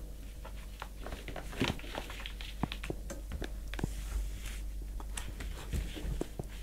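Cat scuffling inside a cardboard box, its claws and body scratching and scraping the cardboard in irregular clicks and short rustles as it wrestles a plush toy.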